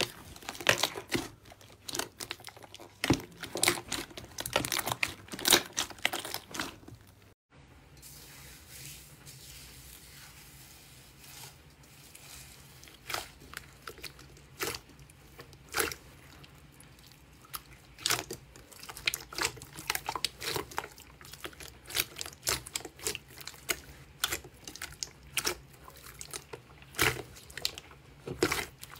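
Slime being pressed and squeezed, giving dense, sharp crackling and popping clicks. About seven seconds in the sound cuts out briefly, and after that the clicks come more sparsely over a faint, steady low hum.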